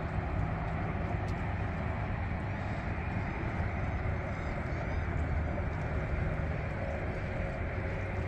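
Steady road and engine noise of a minivan driving, with a constant low hum under it.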